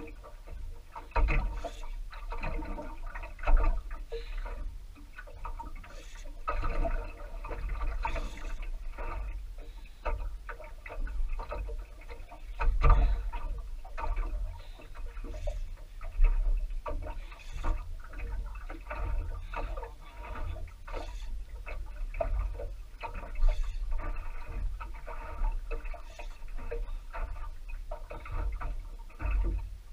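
Irregular clicking and ticking from a spinning reel being worked against a hooked giant trevally, with water lapping at a small boat's hull and a low rumble of wind.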